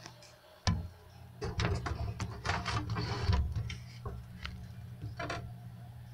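Handling noise from a phone being moved about: a sharp knock, then a busy run of clicks, taps and rustles over a couple of seconds, with a few more scattered clicks later, over a steady low hum.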